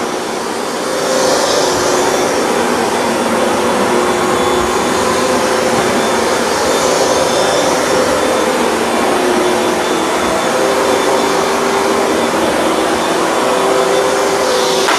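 Hoover Dual Power Max upright carpet cleaner running steadily as it is worked over a rug. Its motor noise carries a hum that fades and returns every few seconds.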